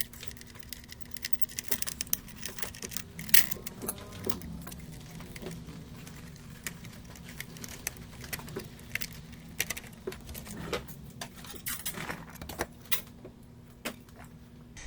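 Irregular small clicks and taps of metal repair tools against a PS5 circuit board and its HDMI port during the port's removal, over a steady low hum.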